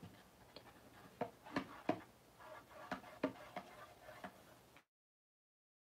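Light clicks and taps of a paper-covered cardboard box and a plastic squeeze bottle of glue being handled, scattered and irregular. The sound cuts out completely about a second before the end.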